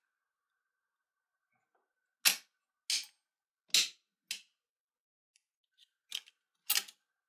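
Six sharp clicks and knocks, spaced unevenly, as the hard plastic and metal parts of a wire-winding guide are fitted by hand around an electric motor armature.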